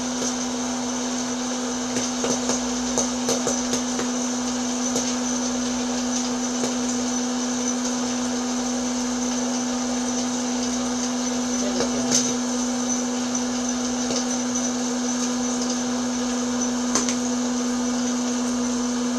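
Electric hot-air popcorn maker's fan motor running with a steady hum and hiss, with a few scattered sharp clicks of kernels popping.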